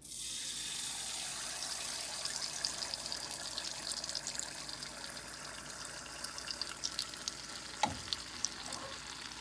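Teler pitha batter of flour and date-palm jaggery hitting hot canola oil: the oil starts sizzling suddenly and keeps up a steady frying sizzle with many small crackles. A short knock comes about eight seconds in.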